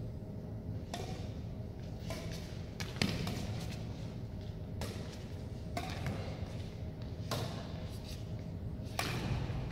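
Badminton rackets striking a shuttlecock back and forth in a rally: sharp hits, about one every one to two seconds, echoing in a large sports hall.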